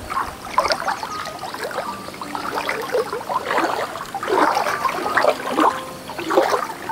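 Pond water sloshing and swishing in uneven surges as a person wades through it, pushing a bamboo-framed scoop net through the water.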